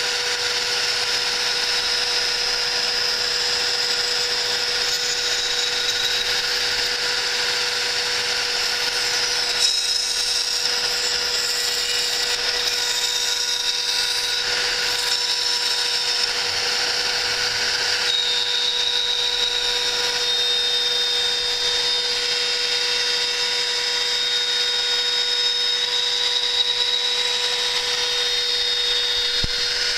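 CNC router spindle running steadily, its end mill cutting metal belt-clamp plates for T5 timing belts: a constant high whine over a hiss of cutting.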